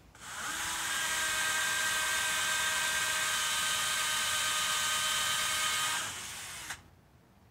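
Cordless drill running at a steady speed, drilling up into the underside of the RV's floor. After about six seconds it drops lower for a moment, then stops near the end.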